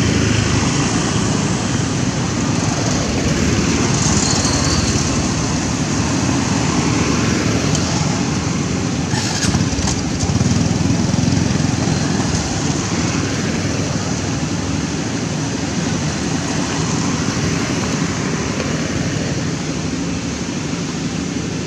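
Steady motorcycle engine and road traffic noise.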